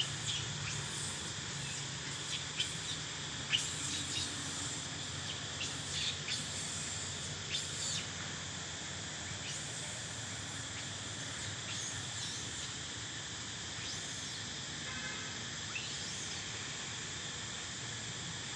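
Steady high-pitched insect chorus, with short sharp clicks scattered through the first half and a faint low hum underneath.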